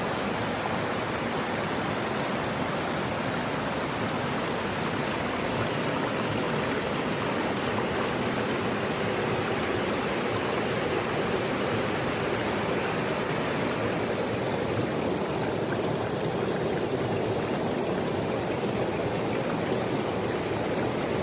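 A river running steadily over a gravel bed: an even rush of flowing water with no breaks.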